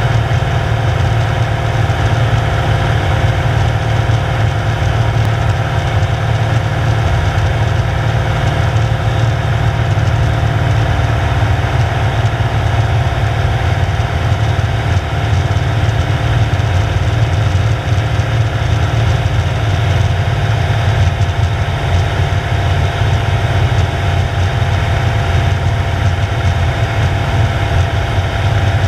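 Single-engine light airplane's piston engine and propeller running steadily, heard from inside the cockpit.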